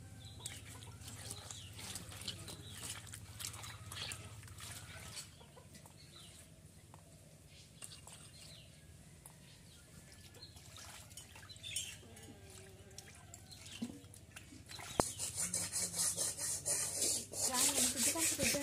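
Hens clucking now and then over a quiet yard while small fish are picked over on wet stone. About three-quarters of the way in, a loud, rapid swishing and splashing starts as hands rub small fish in water in a steel bowl to wash them.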